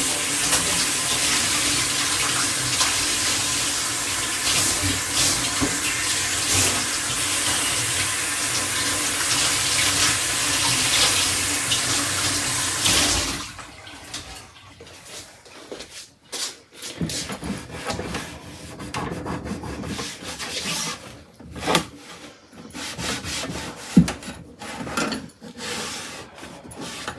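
Water running from a tap into a sink, steady, then shut off abruptly about 13 seconds in. After that, quieter scattered handling and rubbing sounds, with one sharp knock about 24 seconds in.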